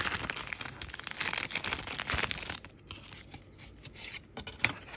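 A clear plastic sleeve bag being peeled open and crinkled, with dense crackling for about two and a half seconds. Quieter scattered rustles and light clicks follow as a plastic-cased card is slid out of it.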